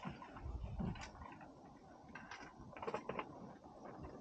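Fishing reel being cranked against a heavy load, its gears giving faint, irregular clicks and ticks as line is wound in.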